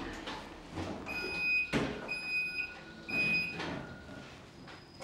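Passenger lift's electronic beeper sounding three short, steady beeps about a second apart, with a thump between the first and second as the car moves.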